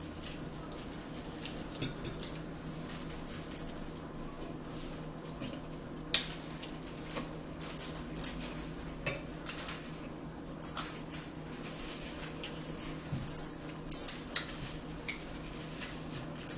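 Forks clicking and tapping against plates while eating, in short scattered clicks, over a steady low hum.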